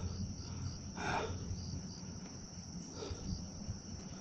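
Insects chirping in a high, steady trill with a faint pulsing chirp underneath. Two short soft noisy puffs come about a second in and again about three seconds in.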